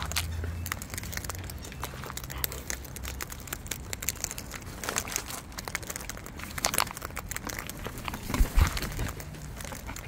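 Sulphur-crested cockatoos feeding from a tub of seed mix: a dense, irregular run of small clicks and crackles as their beaks pick through and crack the seeds. There are a couple of dull thumps about eight and a half seconds in.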